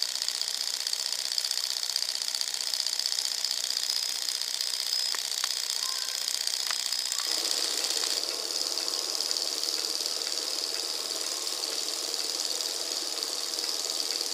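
Small alpha-type hobby Stirling engine running fast on a vegetable-oil candle flame, its piston and flywheel making a quick, steady mechanical rattle. About halfway through, a lower hum joins in.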